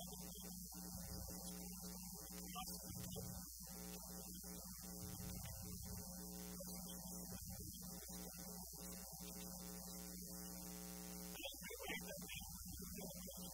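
Steady electrical mains hum: a low, even buzz with many overtones, with only faint, indistinct fragments beneath it.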